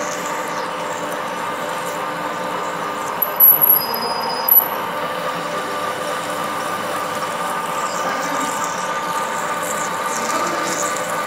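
Centre lathe running steadily as a tool turns a metal bar, with a constant machine whine of several held tones. About three seconds in comes a brief, loud, high-pitched squeal, repeated once or twice over about a second.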